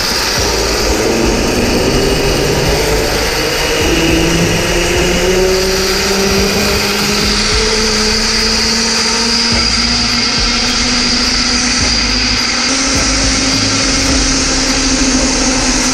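Zipline trolley pulleys running along a steel cable: a steady whirring whine that climbs slowly in pitch as the rider gathers speed, with wind buffeting the microphone underneath.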